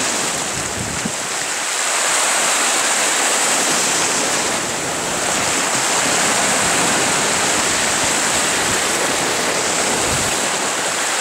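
Waves of a choppy sea washing against a rocky shore: a steady rushing surf noise that swells and eases a little.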